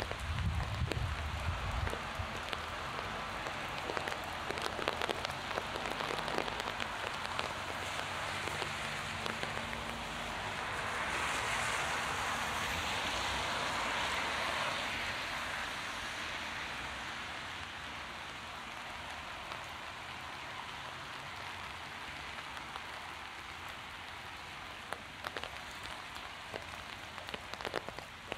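Heavy rain falling: a steady hiss dotted with sharp, close drop impacts. The hiss swells louder for a few seconds near the middle, and there is a low rumble at the very start.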